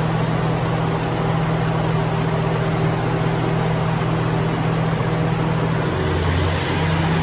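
1250 kVA diesel generator set running with no load, a steady low drone. About six seconds in, its note drops and shifts for a moment, as a sudden step of about half load is thrown on.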